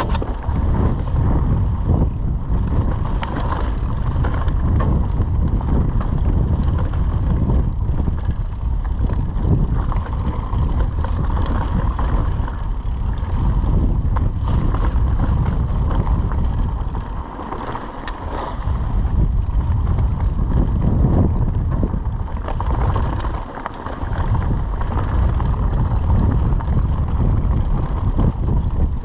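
Mountain bike descending dry, rocky singletrack at speed: wind buffeting the camera microphone over the rumble and rattle of the tyres and bike on dirt and stones, easing off briefly twice past the middle.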